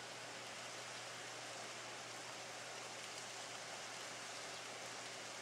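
Steady, even hiss of outdoor background noise, with no distinct event.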